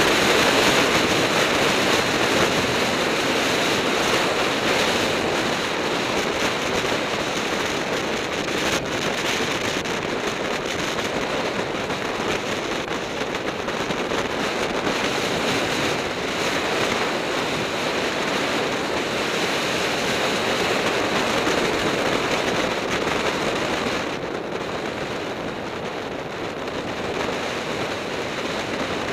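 Wind rushing and buffeting over the microphone of a camera on a road bike during a fast mountain descent, a steady loud noise that eases a little near the end.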